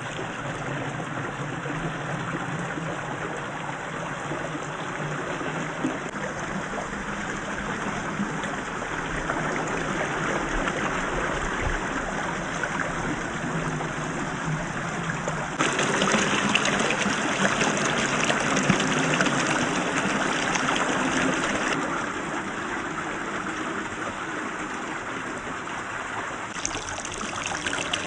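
Shallow rocky creek water flowing and trickling steadily. A little past the middle the rush gets louder and brighter for about six seconds, then settles back.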